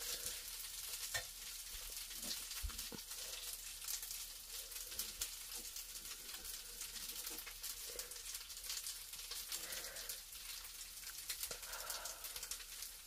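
Colored pencil scratching back and forth on paper while shading in an area: a faint, steady scratch made of many quick strokes.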